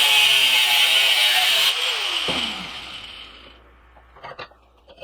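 Electric grinder grinding the steel of an old file. About two seconds in it is switched off and winds down, and a few light clicks follow near the end.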